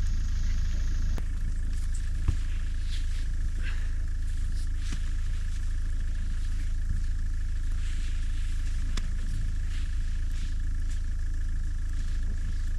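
Car engine running steadily: an even low rumble with a faint constant whine above it and a few light ticks.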